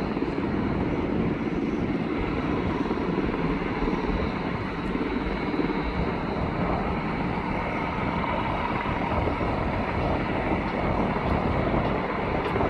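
Two Airbus H130 helicopters' turboshaft engines and rotors running as they set down, heard as a steady rumble with a faint high whine and no change in level.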